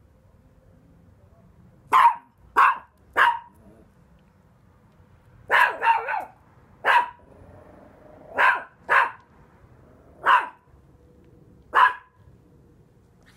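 Chihuahua barking: about eleven short, sharp barks in loose groups, roughly a second apart, with pauses of a couple of seconds between groups.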